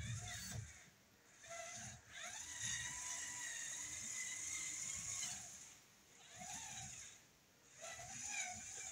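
Electric drive motors and plastic gearing of a Mould King 17036 brick-built RC backhoe loader whining as it drives slowly back and forth in about five short spurts, the pitch rising and falling with speed.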